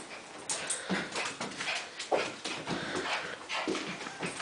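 Pet dog making short excited whines and whimpers, mixed with irregular scuffling noises.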